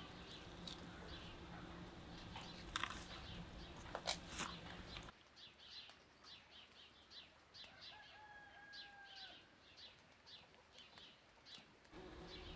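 Soft knocks and handling noise as vegetables are pressed into a raw lamb carcass. About five seconds in, the background drops away and small birds chirp in quick short notes, with one longer drawn-out call near the middle.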